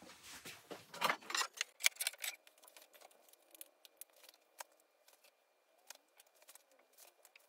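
Oak boards knocking and clacking against one another and the wooden bench as they are handled and stood on edge: a run of sharp wooden clacks in the first couple of seconds, then only a few faint scattered clicks.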